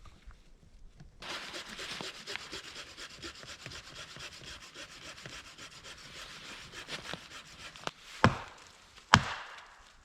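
Dead firewood being sawn by hand: a steady rasping for about seven seconds, then two sharp, loud cracks close together near the end.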